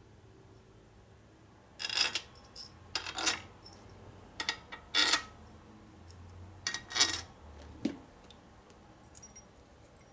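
Small steel screws and loose hardware clinking and jingling as they are handled, in about six short clusters of metal-on-metal clinks.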